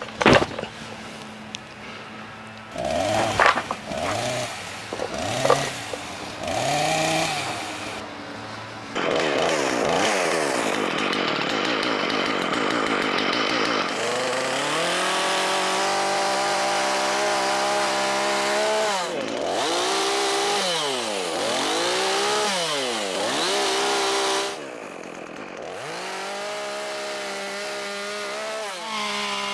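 Makita two-stroke gas chainsaw being started and run. In the first few seconds the engine catches briefly several times. It then runs at high revs, its pitch dipping several times as it bites into branches, and settles to a lower steady run near the end.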